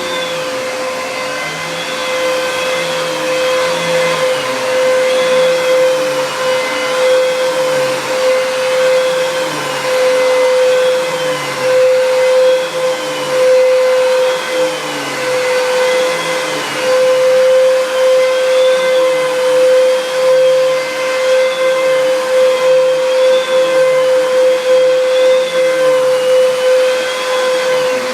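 Fantom Cyclone XT vacuum cleaner running: a steady motor whine with a wavering tone that rises and falls about every two seconds. The owner says it doesn't sound quite right.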